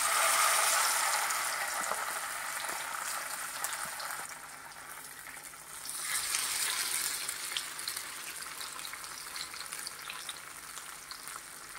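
Hot oil sizzling and crackling in a frying pan as a black pomfret is laid in. The sizzle is strongest at first and eases, then flares up again about six seconds in as a second pomfret goes into the oil.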